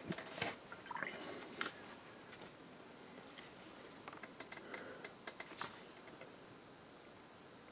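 Faint handling sounds of a hand gripping a paint pot and working a paintbrush: a few soft clicks and rustles in the first two seconds, then two short soft hisses later on.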